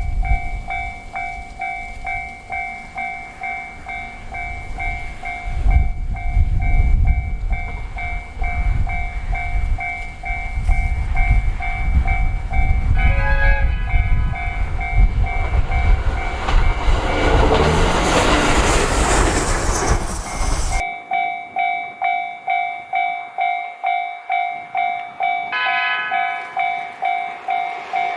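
Japanese railway level-crossing alarm ringing its pulsing two-tone bell about twice a second while a train runs past with a heavy rumble. The train noise swells into a wide rushing hiss and then cuts off suddenly about 21 seconds in, leaving the crossing bell ringing alone.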